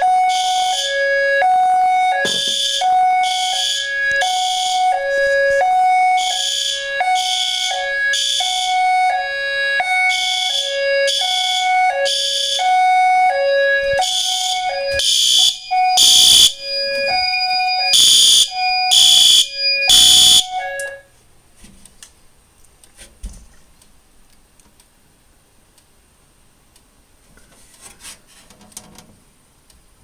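System Sensor fire alarm horn-strobes sounding in a repeating pulsed pattern, two pitches alternating about once a second, as the system is in alarm from the tripped heat detector. A few loud knocks come over the alarm shortly before it cuts off suddenly about 21 seconds in, leaving faint clicks.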